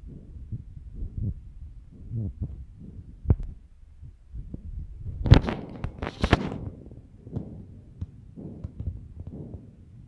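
Low irregular thumps and rumble of noise on the microphone, with a sharp click about three seconds in and two louder rushing bursts about five and six seconds in.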